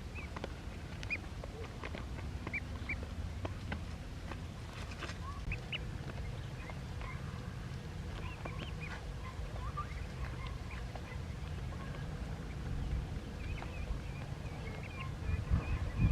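Ducklings peeping: many short, high calls scattered throughout, over a steady low rumble.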